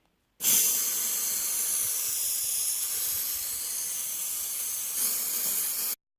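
A loud, steady hiss that starts suddenly about half a second in and cuts off abruptly near the end, lasting about five and a half seconds.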